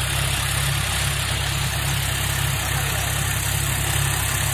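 Tractor engine running steadily as the tractor pulls a rotary tiller through a field, a constant low drone with a hissing haze over it.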